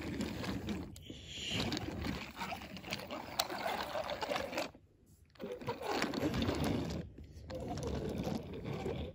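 Wooden toy train cars pushed by hand, their wheels rolling and rumbling over wooden track with clicks at the track joints. The rolling comes in stretches, with short pauses about five and seven seconds in.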